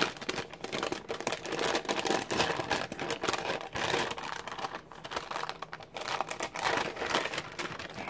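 A paper envelope is handled and opened by hand, crinkling and rustling in many quick, irregular crackles that die down near the end.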